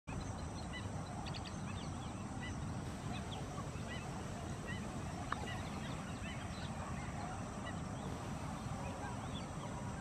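Outdoor bird chorus: many small birds chirping in short, scattered calls over a steady low rumble, with a single sharp click about five seconds in.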